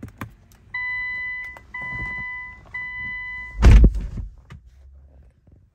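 Push-button start pressed with two clicks, then three steady beeps from the dash, each just under a second long. About three and a half seconds in, the Infiniti Q60's 3.0-litre twin-turbo V6 cranks and fires in a short loud burst, then drops back to a low rumble.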